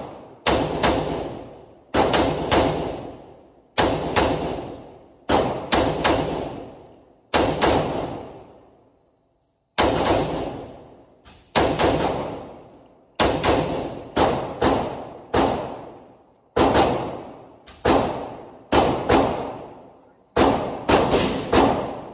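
FN 15 Tactical II carbine firing on a binary trigger, one shot on the pull and one on the release, so the shots come in quick pairs about every second and a half. Each shot rings out in a long echo of the range hall. There is a brief break about nine seconds in.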